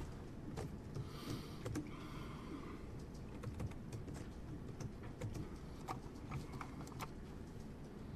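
Typing on a computer keyboard: faint, scattered key clicks at an irregular pace.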